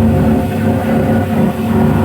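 Speedboat's twin 250 hp engines running loud and steady.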